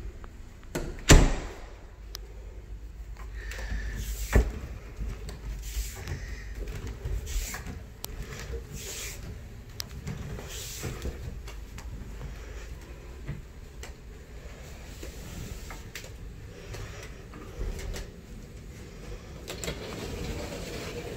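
Footsteps and the handling noise of a handheld phone being carried around, with a sharp knock about a second in and another about four seconds in. A door is pulled open near the end.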